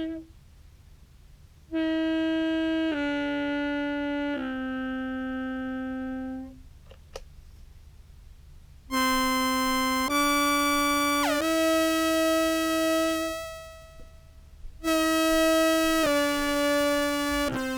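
Contrabass clarinet playing held notes in its upper register, doubled by a Meris Enzo mono synth tracking two octaves above, wet and dry mixed. The notes come in three short phrases of two or three notes with brief pauses between, and a quick falling synth glide about eleven seconds in.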